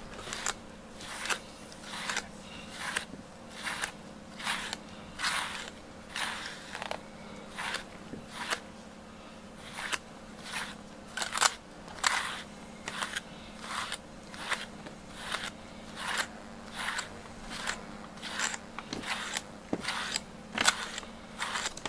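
A wire-pin slicker brush raking through a cat's fur in repeated scratchy strokes, about three every two seconds.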